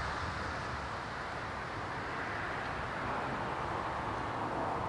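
Let L-410 turboprop's engines running, heard from a distance as a steady rushing noise without clear pitch.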